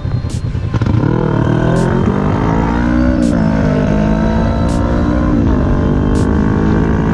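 Sport motorcycle engine accelerating hard, its pitch climbing and then dropping back with each upshift, over low wind rumble on the microphone.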